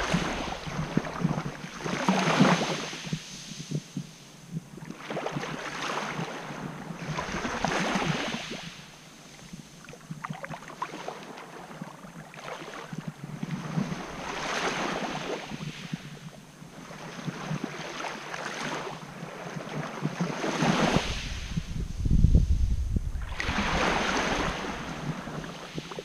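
Small waves breaking and washing up over coarse quartz-grain sand at the water's edge, a new wash swelling and fading every few seconds. About three quarters of the way through, a gust of wind buffets the microphone with a low rumble.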